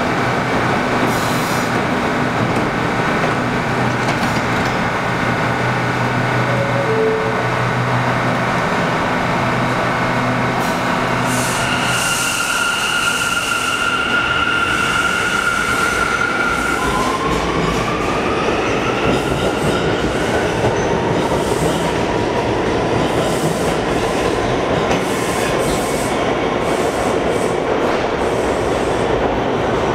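Bombardier R179 subway train standing at the platform with a steady electrical hum, then pulling out. A few seconds past the halfway point its electric propulsion starts a whine that rises in pitch as it accelerates, over wheel and rail noise.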